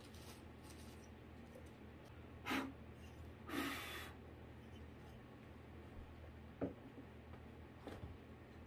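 Quiet handling noises as small household objects are picked up and set down: a few brief rustles and knocks, with one sharp click about two-thirds of the way through, over a low steady hum.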